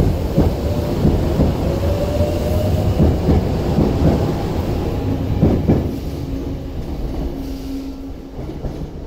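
A Tokyo Metro 05 series electric train pulls out past the platform. Its wheels knock over the rail joints in a run of clacks over a steady rumble, with a faint whine rising slightly in pitch. The sound fades away over the last few seconds as the train leaves.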